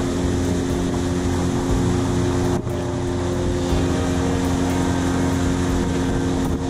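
A 20 hp outboard motor running steadily at cruising speed, pushing a small boat along, with wind and water noise.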